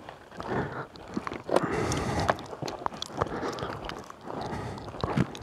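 Footsteps of a person walking: irregular scuffs and clicks.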